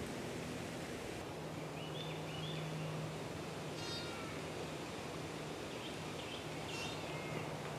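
A few short, high bird calls a second or two apart over a steady low hum.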